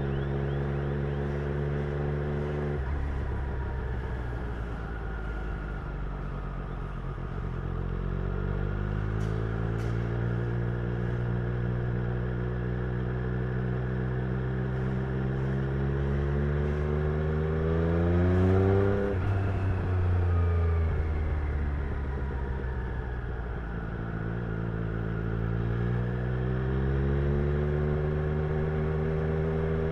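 Triumph Street Triple's inline three-cylinder engine and exhaust from the rider's seat. The revs hold steady, drop about three seconds in, then climb slowly to a peak about nineteen seconds in. They fall away and rise again near the end.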